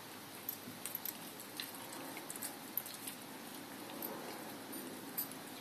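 Boerboel puppy chewing and gnawing a raw lamb's heart: irregular short wet smacks and clicks of teeth and tongue on the meat, over a steady background hiss.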